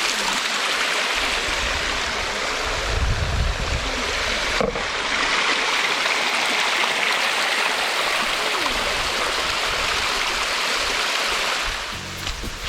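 Low-flow waterfall and stream running: a steady rush of falling water, with a low rumble for a few seconds near the start.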